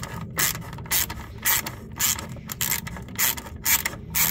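Hand ratchet clicking in short strokes, about two a second, as a socket backs out the bolt holding a transmission cooler to the plastic fan shroud.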